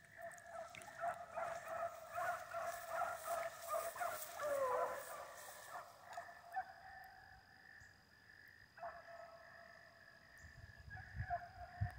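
Pack of beagles baying in the distance as they run a rabbit, several dogs' voices overlapping. The baying thins out a little past the middle and picks up again near the end.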